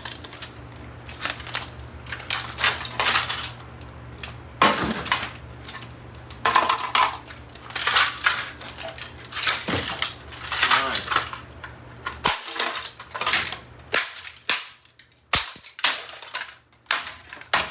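A plastic mechanical keyboard, a Newmen GM610, being smashed: a dozen or more sharp, irregularly spaced blows, with its case and parts cracking and breaking apart.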